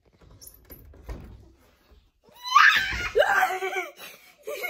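Faint knocks and handling noise, then, about two and a half seconds in, a loud high-pitched scream lasting about a second, followed by a shorter vocal sound near the end.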